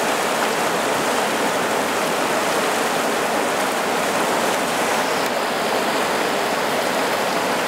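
River rapids rushing steadily over rocks: a dense, even wash of whitewater noise that neither rises nor falls.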